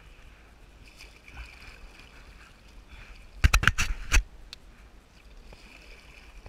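Faint background noise on calm water, broken about three and a half seconds in by a quick run of sharp knocks and taps as fingers handle the camera.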